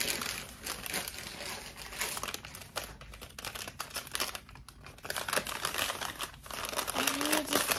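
Paper wrapping crinkling and rustling as a small gift package is unwrapped by hand, in an irregular run of crackles.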